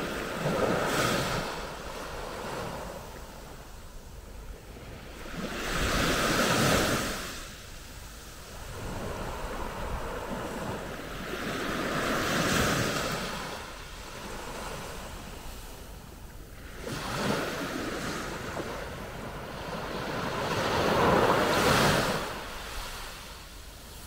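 Calm Mediterranean sea waves breaking on a sandy beach. Each one rises to a hissing surge and washes back, five times, about every four to six seconds.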